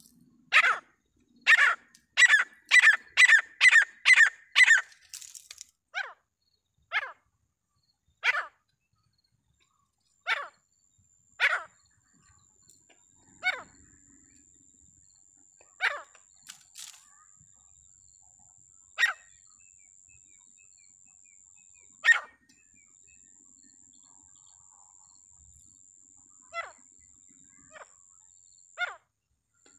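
Teetar (francolin) calling: a fast run of sharp, loud calls in the first few seconds, then single calls spaced one to three seconds apart. A thin steady high tone comes in about a third of the way through and runs under the later calls.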